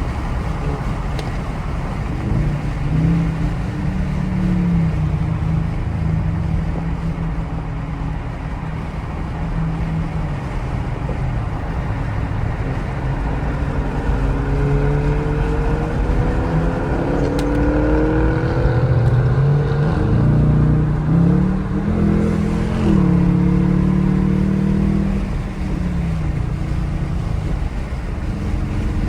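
A vehicle's engine running on the road, its pitch rising and falling several times as it accelerates and shifts gear, over steady road noise.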